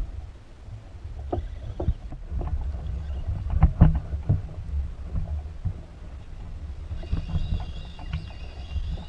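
Low rumble of water and wind against a plastic fishing kayak, broken by several sharp knocks of gear and hands against the hull. About two seconds before the end a faint steady high whine joins in.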